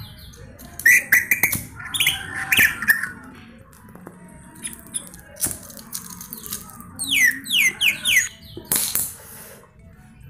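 A white-rumped shama (murai batu) calling in short runs of quick falling chirps, several bursts a few seconds apart, with a few sharp clicks and a brief rustle near the end. The bird is one its owner reports as hoarse, coughing and wheezing.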